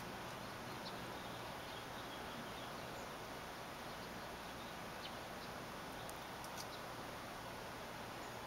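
Steady background hiss with a low hum, and a few faint, brief high clicks or chirps scattered through it.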